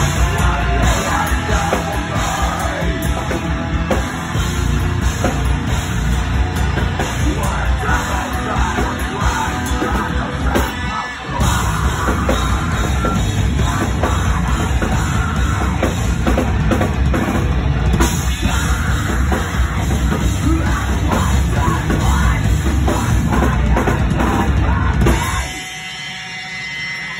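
A heavy metal band playing loud and live: distorted electric guitars, a pounding drum kit and screamed vocals. The music breaks off for a moment about eleven seconds in, then stops abruptly near the end.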